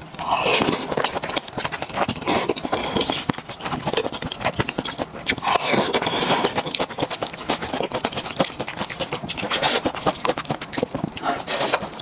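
Close-miked chewing of fatty, gelatinous braised pork knuckle and rice: a steady stream of wet mouth smacks and clicks, with a few louder breathy slurps every few seconds.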